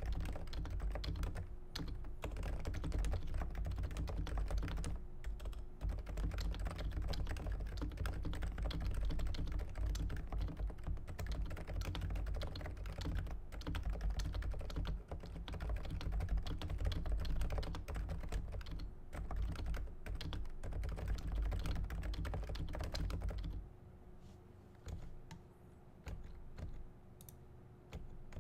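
Fast, continuous typing on a Realforce 86U Hi-Pro Topre keyboard with lubed sliders and 55 g rubber domes. About 23 seconds in the typing stops, leaving a few scattered keystrokes.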